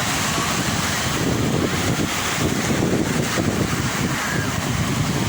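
Sea waves washing on the shore, a steady rush of surf with wind buffeting the microphone, giving a gusty low rumble.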